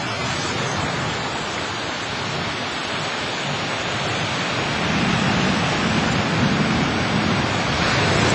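Sea surf washing onto the beach: a steady rushing noise that swells louder about halfway through.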